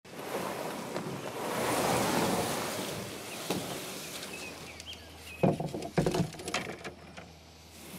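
Canoe hull sliding out through shoreline reeds and water plants into the water, a swelling rustle and scrape. It is followed past the middle by a few hollow knocks and bumps against the canoe.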